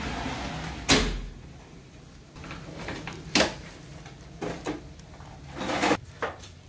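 A kitchen cabinet drawer being pulled out and handled on its metal runners: a sharp knock about a second in, another near the middle, a few light clicks, and a scraping slide shortly before the end.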